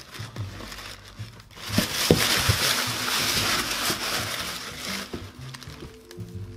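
Tissue paper rustling and crinkling for about three seconds, starting just under two seconds in, as a leather loafer is handled in its shoebox. Background music with a bass line plays underneath.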